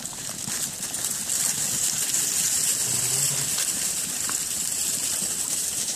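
A flock of sheep on the move: a steady rustling hiss of many hooves trampling through grass and soil, with one short low bleat about halfway through.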